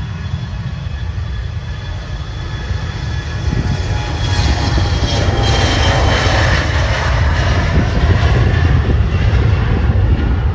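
Jet engines of a Mitsubishi CRJ-700 regional jet at takeoff power on its takeoff roll: a rumble with a high engine whine that grows louder as the jet passes. Partway through, the whine slides down in pitch.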